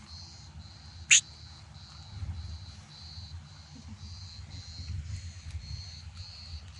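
Insects chirping in an even pulsing rhythm, about two pulses a second, over a faint low rumble. A single brief, sharp, high squeak about a second in is the loudest sound.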